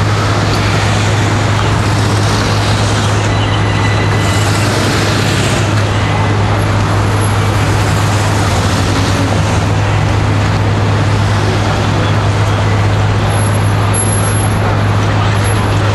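Loud, steady street noise with a constant low engine hum underneath, typical of idling emergency vehicles.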